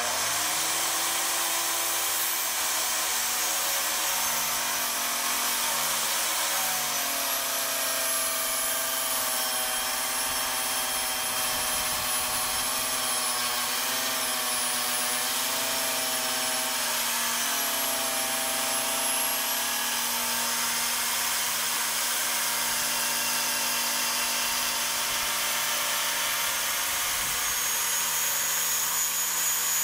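Table saw running steadily while its blade cuts through a solid red oak stair tread. The motor's whine wavers slightly in pitch through the middle as the blade takes the load.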